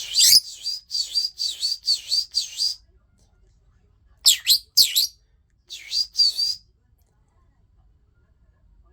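A rosy-faced lovebird gives short, high-pitched repeated calls. A quick run of about seven comes in the first three seconds, followed by two shorter groups of two or three calls each.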